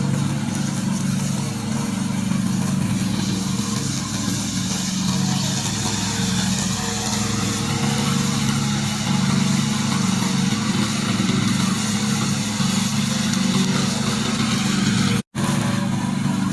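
Gasoline engine of a remote-controlled slope lawn mower running steadily, with a brief break about fifteen seconds in.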